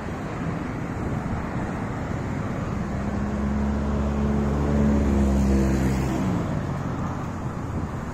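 Steady wind and traffic noise on the microphone. About three seconds in, a motor vehicle drives past on the road alongside: its engine grows louder, then drops in pitch as it goes by and fades out near six seconds.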